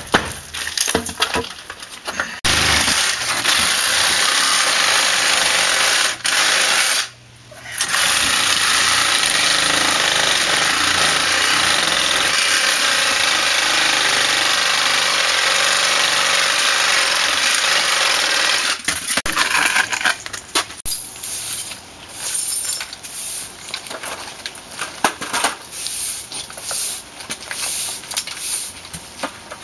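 A power tool runs steadily for about sixteen seconds, starting about two seconds in and cutting out once for about a second, then stops. Scattered knocks and clatter come before and after it.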